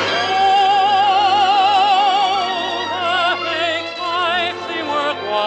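Male tenor singing a ballad with orchestra accompaniment: one long held note with wide vibrato, then a run of shorter notes.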